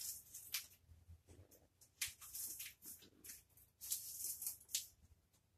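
Paper backdrop being handled out of view: faint, irregular crinkling and rustling in short crackly bursts.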